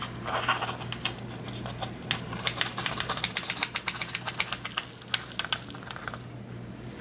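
Gold flakes and small nuggets sliding off a plastic gold pan into a small brass weighing pan, a quick patter of tiny metallic clicks with a high hiss of grains sliding. The patter thins out about six seconds in.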